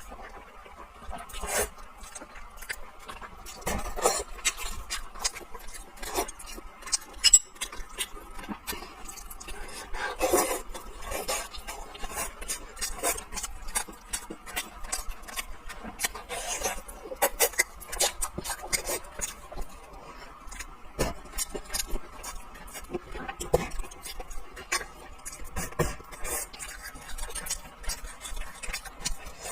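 A person eating braised fish: chewing and mouth sounds, with utensils clicking against a dish in many short, irregular ticks.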